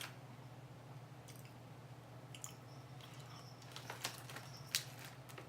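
Someone chewing crunchy filled cracker pillows with the mouth close to the microphone: a handful of sharp crunches scattered through, over a faint steady low hum.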